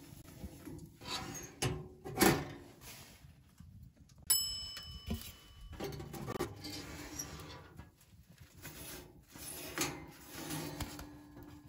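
Stainless steel camp oven's rack and door clattering as bread buns are set in: several short metal knocks, the loudest about two seconds in, and one sharp strike about four seconds in that rings on for about a second.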